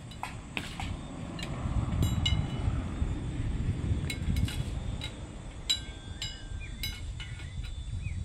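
Steel rebar clinking: about half a dozen sharp metallic knocks that ring briefly, spread across several seconds, over a low rumble that swells and fades in the first half.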